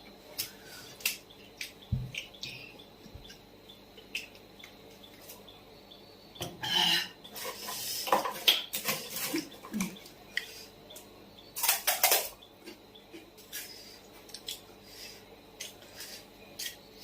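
Close-up eating sounds of a puchka (pani puri) challenge: scattered clicks and clinks of dishes and utensils, with a few louder crunching bursts midway as the crisp shells are bitten.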